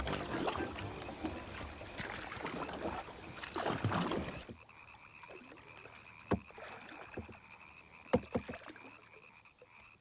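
Kayak paddle strokes splashing and dripping in pond water for about four seconds, then only a few drips and knocks over a steady high-pitched trill of calling frogs.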